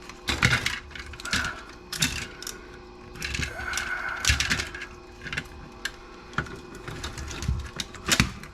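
Hard plastic parts of a Zip drive's casing clicking, knocking and snapping as it is handled and pried apart by hand, with a brief squeak a little past halfway.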